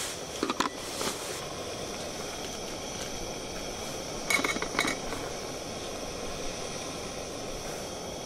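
Gas canister camping stove burner hissing steadily under a pot. Two short bursts of cookware clinks and clatter come about half a second in and again around four and a half seconds in.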